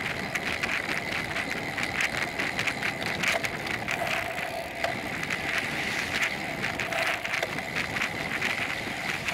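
A bicycle riding along a paved road, heard from a camera mounted on the bike: a steady rush of wind and tyre noise with frequent small rattles and clicks as the bike rides over the road surface.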